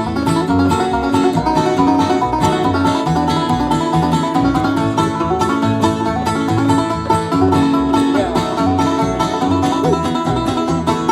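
Bluegrass band playing an instrumental break with no vocals: a fast-picked banjo leading over strummed strings and a stand-up bass.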